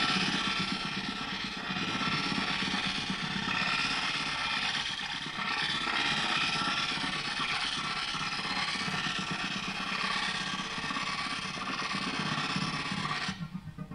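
Dense, grainy, noisy wash from a chain of effects pedals: a looped phrase chopped into very short grains by granular delay pedals such as the Red Panda Particle. It cuts off suddenly near the end, leaving a quieter, rapidly pulsing loop.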